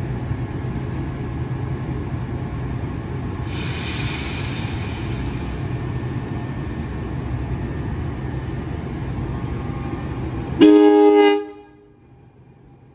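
NJ Transit Arrow III electric multiple-unit train with a steady hum and rumble, a brief hiss of air about four seconds in. Near the end the train sounds one short horn blast of several tones as it departs, and the hum drops away after it.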